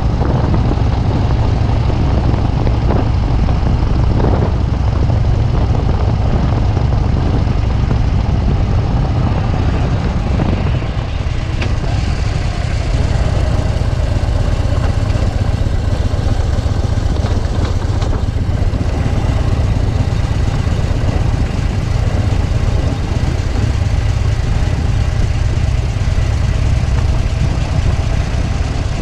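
Harley-Davidson V-twin engine running steadily as the motorcycle rides along, with a deep low exhaust note under a steady rush of noise; the level dips briefly about ten seconds in.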